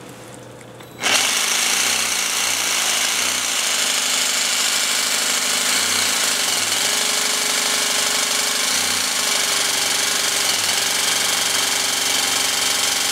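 Cordless jigsaw starting about a second in, then running steadily as its reciprocating blade saws through wet tile.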